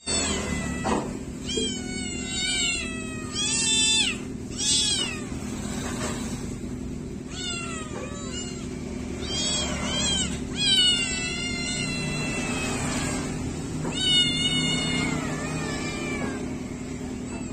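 Several kittens meowing: a string of high calls that rise and fall in pitch, some overlapping, over a low steady hum.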